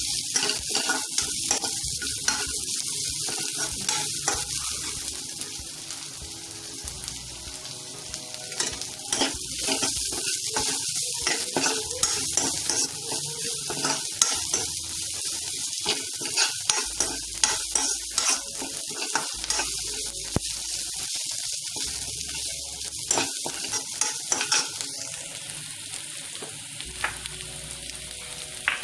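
Sliced onions with curry leaves and ginger-garlic paste sizzling in hot oil in a kadhai, stirred with a slotted steel spatula that scrapes and taps against the pan in frequent short clicks. This is the sauté stage of a Maharashtrian tadka, frying the onion until it turns pink; the sizzle eases a little near the end.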